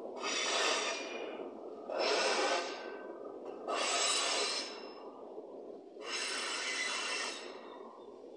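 Tail of a freight train of hopper cars rolling away on a curve: a steady low rumble with a hissing rush that swells four times, about every two seconds, dying away near the end.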